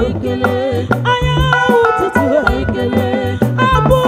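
A women's vocal group singing an Igbo song live with a band, the lead voice bending and wavering over a steady bass line and drum kit beat.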